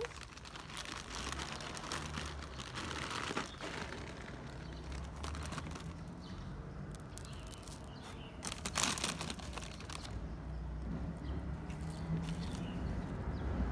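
Plastic crinkling and rustling of a bag of dry cat food being handled and the kibble poured out, with a louder brief burst about nine seconds in. A low steady rumble runs underneath.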